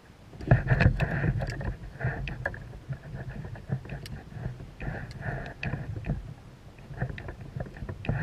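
Kayak moving on the water: irregular knocks and clatter against the hull over a low rumble of water noise, starting suddenly about half a second in.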